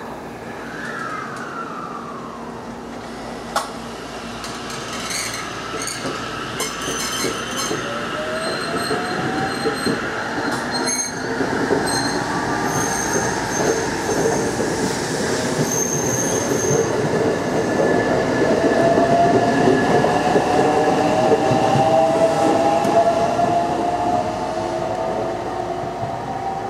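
JR West limited-express electric train pulling out and accelerating, its traction motors whining in several tones that rise slowly in pitch while the wheels rumble over the rails. The sound grows louder as the cars pass. There is a sharp click a few seconds in.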